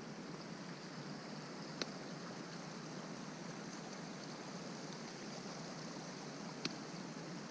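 Steady rushing noise of running water, with two short sharp clicks, one about two seconds in and one near the end.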